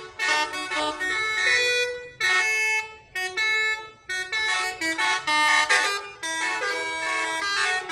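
A bus's telolet horn, a multi-trumpet air horn, playing a tune as a string of held, chord-like notes. It breaks off briefly between phrases.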